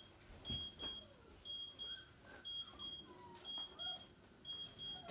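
Electronic alarm beeping in pairs of short, high beeps, about one pair a second.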